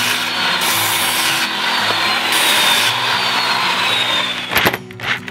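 Handheld power tool working a piece of wood: a steady grinding noise with a faint motor whine that slowly falls in pitch. It stops about four and a half seconds in, followed by a few sharp knocks.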